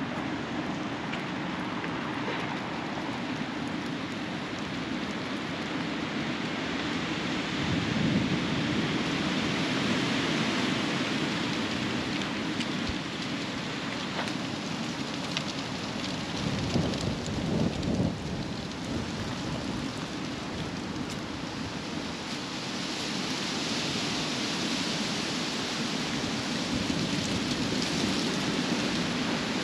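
Wind buffeting the microphone: a steady rushing rumble that surges in uneven gusts about eight seconds in and again around sixteen to eighteen seconds.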